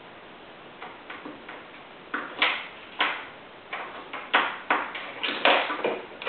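A plastic pen clattering and tapping on a hardwood floor as a cat bats it about: a dozen or so irregular sharp clicks, faint at first and louder from about two seconds in.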